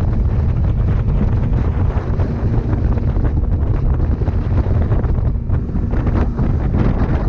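Wind buffeting the microphone aboard a speed boat under way, over the steady drone of its engine.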